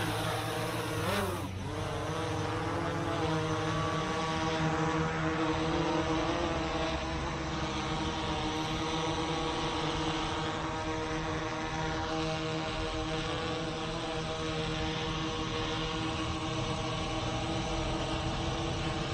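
Autel EVO II quadcopter drone taking off near the start, then its four propellers humming steadily with several even tones as it hovers and flies. It is fitted with new propellers that the owner measured as about 8 dB quieter than the old ones.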